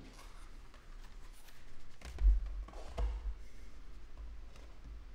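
Product boxes and bubble-wrapped packages being handled on a wooden tabletop: light rustling and clicking, with two dull knocks about two and three seconds in.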